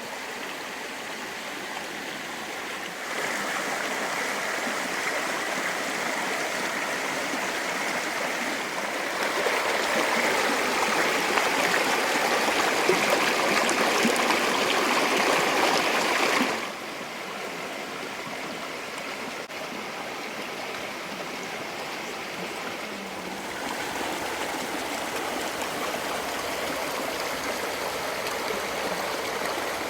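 Creek water running, a steady rushing that jumps louder and softer several times, loudest in the middle and dropping suddenly about halfway through.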